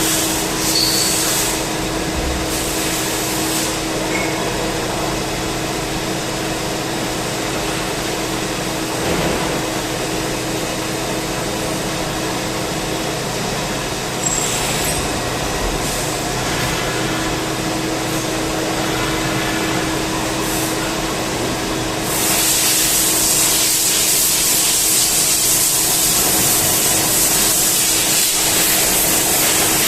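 CNC turning lathe running, a steady machine noise with a constant hum. About two-thirds of the way through, a loud hiss sets in and carries on.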